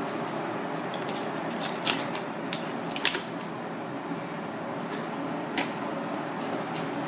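A knife cutting into a razorfish at the gills, with three sharp clicks or snaps, the loudest about three seconds in, over a steady hiss and hum.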